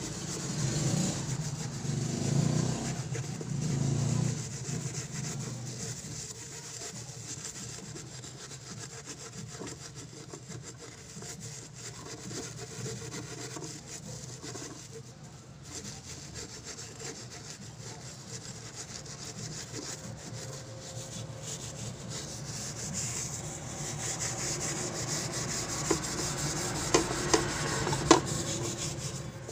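Steel-wool scrubber scouring the underside of a frying pan: a continuous scratchy rasping, loudest in the first few seconds, as burnt-on grime softened by a foaming cleaner spray is rubbed off. Near the end, a few sharp knocks.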